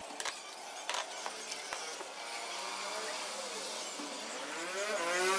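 Knocks and rustling of cardboard and plastic packaging as parts are lifted out of a box, with several sharp clicks in the first two seconds. Later a pitched hum glides upward and grows louder near the end.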